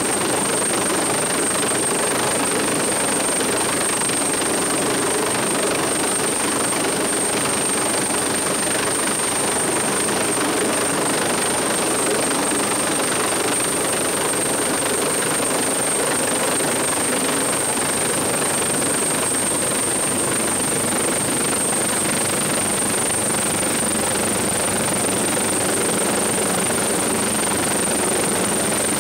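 Coastguard search-and-rescue helicopter hovering close overhead: steady, loud rotor and engine noise that does not rise or fall, with a steady high whine running over it.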